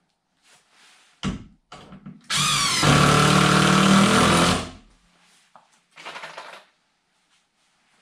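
A power drill spins up with a rising whine and runs steadily for about two seconds, after a couple of knocks just before. A short rustle follows near the end.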